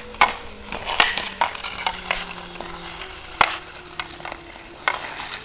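Sharp, irregular clacks of a hockey stick hitting a puck and the ice, four or five over a few seconds, over the light scrape of skate blades.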